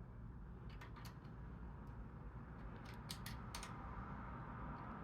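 Faint, irregular metal clicks of an Allen wrench working a bolt on a bicycle as it is tightened.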